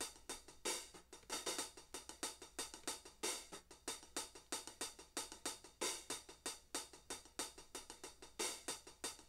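Drum groove from the Abbey Road Vintage Drummer's sampled Ebony vintage kit, heard through single mixer channels that are being soloed one at a time. It sounds thin and quiet, with no bass drum: a run of separate snare, hi-hat and cymbal-like hits, two to three a second.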